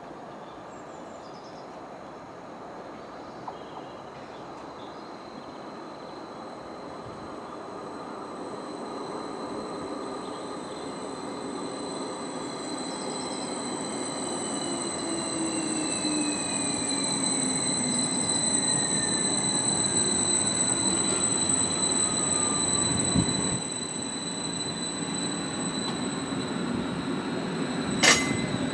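A Greater Anglia Class 755 bi-mode multiple unit approaching and running through the station, growing steadily louder, with a high steady squeal from the wheels and a whine that falls in pitch as it passes. A single sharp knock sounds near the end.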